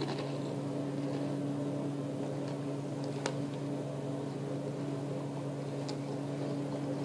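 Steady low machine hum, with a higher overtone riding on it, and a single sharp click about three seconds in.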